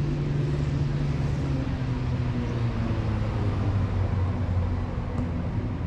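A low engine drone whose pitch slowly drops partway through, like a motor vehicle running nearby.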